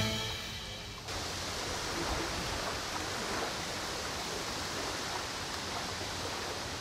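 Steady hiss of wind and choppy river water at the bank, even throughout, with no distinct events.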